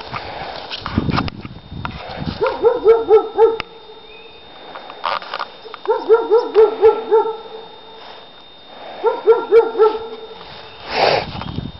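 A dog barking in three quick runs of about five or six rapid barks each, a few seconds apart, with a brief rush of noise near the end.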